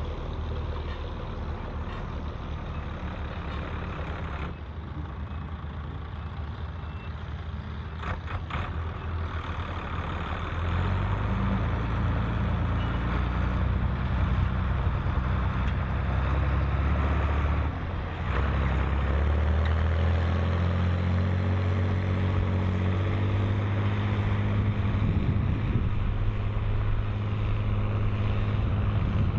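Volvo BM 814 tractor's diesel engine working under load pulling a six-furrow plough. It grows louder about ten seconds in, dips briefly a little past halfway, then runs on steadily.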